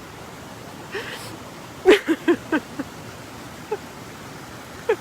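A woman's sharp breath in, then a few short broken catches of her voice, the sound of someone crying, over a steady background hiss.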